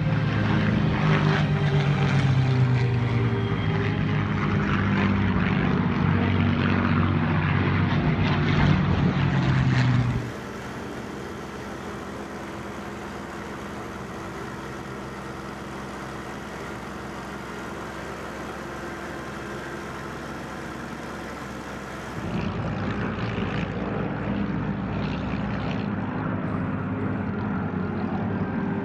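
Supermarine Spitfire Rolls-Royce Merlin V12 engines droning in flight, with several engine notes shifting against each other. About ten seconds in the sound cuts to a quieter, steady drone, and it grows louder again about 22 seconds in.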